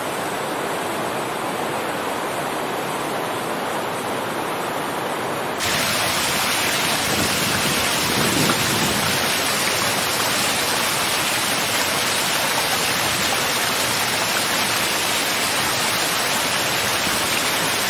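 Muddy flash-flood water rushing, a steady wash of noise. About five and a half seconds in it cuts abruptly to a louder, brighter recording of the same rushing torrent.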